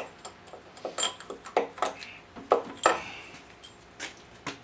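Metal clinking and clicking of a socket wrench and spark plug against the outboard's cylinder head: a run of sharp clinks with a short metallic ring, loudest a little before three seconds in.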